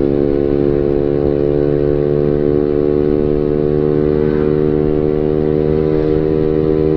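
Honda Beat scooter with a stock engine and an aftermarket racing exhaust, cruising at steady throttle: an even exhaust drone whose pitch holds nearly level.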